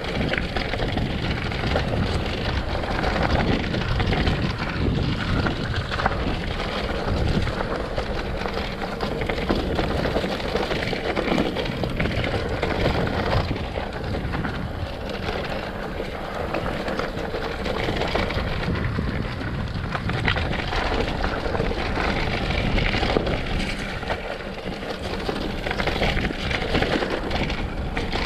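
Bicycle riding downhill on a rough trail: a steady, loud mix of wind buffeting the microphone, tyres rolling over dirt and the bike rattling.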